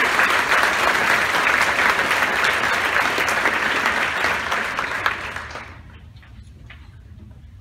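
Audience applauding, a dense patter of many hands clapping that dies away about five to six seconds in.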